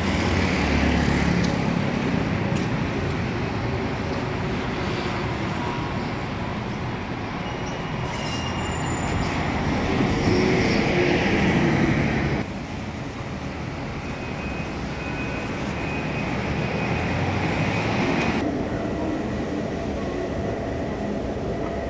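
City street traffic noise. About twelve seconds in it cuts abruptly to the quieter, steadier hum of a metro station escalator riding down, with a faint high whine.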